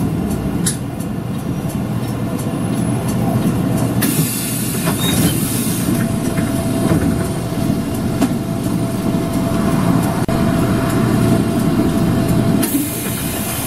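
City bus driving, heard from inside: steady engine and road rumble with rattling. A steady whine comes in about halfway through, and there are two stretches of high hiss, one about four seconds in and one near the end.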